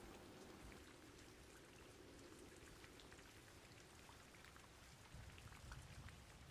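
Faint rain with scattered individual drops.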